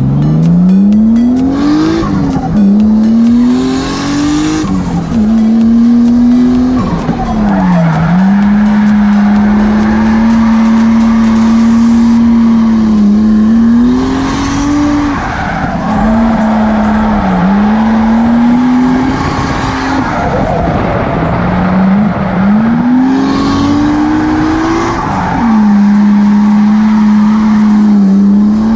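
Nissan 180SX drift car's engine heard from inside the cabin, held at high revs through long drifts. The revs dip and climb again several times between corners, with tyres squealing.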